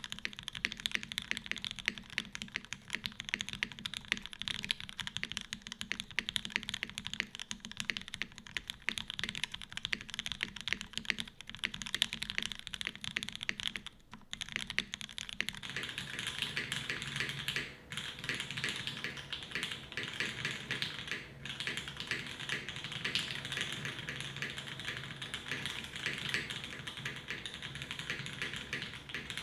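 Custom Hiney TKL One mechanical keyboard with an aluminum plate, lubed Oil King linear switches and GMK keycaps, typed on continuously in a quick stream of keystrokes. The typing breaks off briefly twice, about halfway through and a few seconds later.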